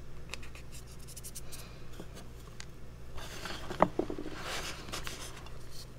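Hands crushing and rubbing reformed gym chalk: soft powdery crackles and gritty scraping that grow louder, with one sharp crack about two-thirds of the way in.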